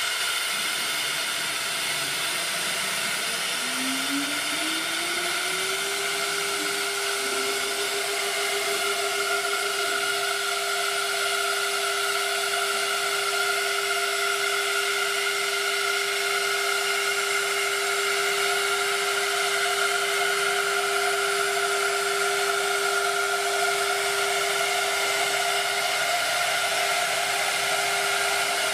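2001 Quintax QS30-505 CNC router running a program: a loud, steady rushing noise, with the spindle whine rising in pitch about four seconds in and then holding steady.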